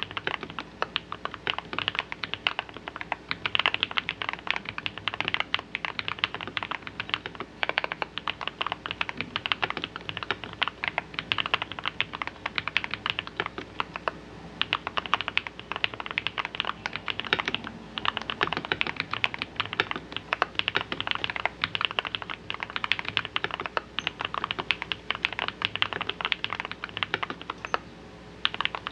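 Steady, fast typing on an RK Royal RG-987 mechanical keyboard with lubed 62 g Holy Panda-like tactile switches, a steel plate and a foam- and silicone-damped case, giving a deep "thocky" key sound. Typing pauses briefly about halfway through and again shortly before the end.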